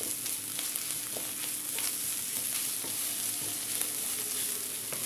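Chopped onions, green chilies and ginger-garlic paste sizzling in coconut oil in a non-stick kadai, with a wooden spatula stirring and scraping through them. A steady frying hiss with scattered small clicks of the spatula.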